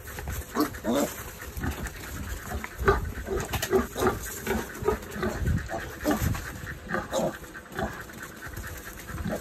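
Newborn piglets, three days old, making short, repeated calls at an irregular pace.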